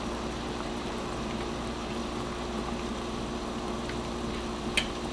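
A large pot of vegetable broth bubbling steadily as it comes up to a boil, with a light click near the end.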